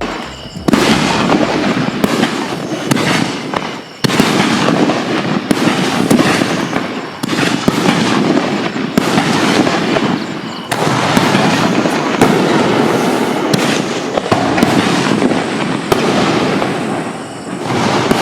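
7-inch canister firework shells launching and bursting: a dense, loud run of booms and crackle. The sound changes abruptly a few times where separate shots are cut together.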